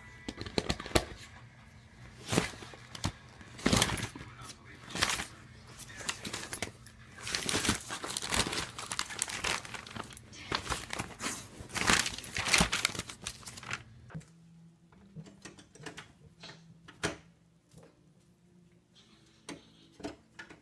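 Paper crinkling and tearing over and over as a dog chews up a spiral notebook and a glossy magazine. About fourteen seconds in, this gives way to a quieter stretch with a few scattered clicks and knocks.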